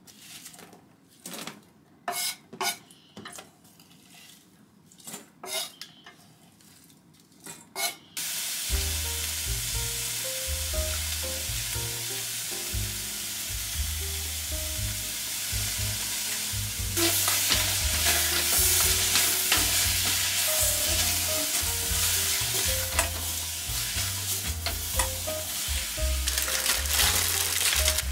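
Kitchen knife slicing onion on a wooden cutting board, as a string of separate chops, for the first eight seconds or so. Then sliced onion and shimeji mushrooms start sizzling in butter in a saucepan, and the sizzle grows louder about halfway through.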